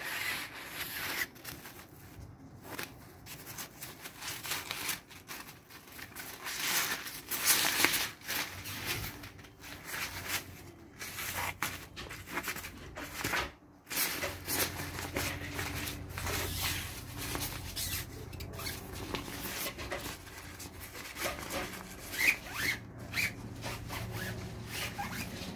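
Nylon fishing-rod bag rustling and rubbing as hands handle it and open it, a string of short scrapes and crinkles.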